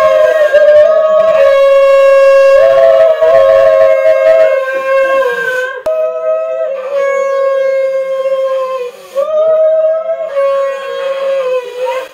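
Conch shell (shankha) blown in long, steady, loud blasts, several in a row with short breaks between, each note slightly rising as it starts.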